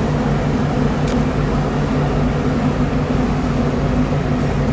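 Machinery running with a steady, low, even hum at a constant pitch.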